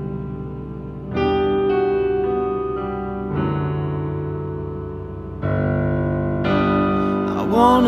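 Piano chords in a slow worship-song ballad, each chord held and then changed about every two seconds.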